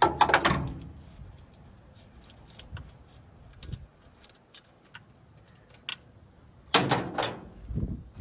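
Metal hand tools clinking and rattling: a loud rattle at the start, scattered light clicks through the middle, and another louder clatter about seven seconds in.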